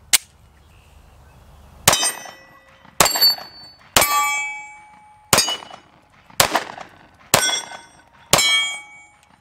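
FN 509 9mm pistol firing seven shots of 124-grain full metal jacket, roughly one a second, beginning about two seconds in. Each shot is followed by the ring of a steel target being hit. A single sharp click comes at the very start.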